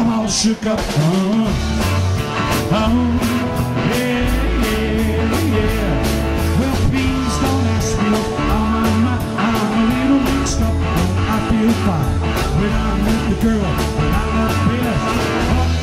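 Live rock and roll band playing: electric guitars, bass and a drum kit keeping a steady beat, with a man singing lead.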